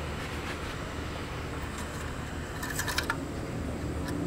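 The 2015 Subaru WRX's oil dipstick is wiped and slid back into its tube, with a short burst of metallic clicks and scraping about three seconds in. A steady low hum runs underneath.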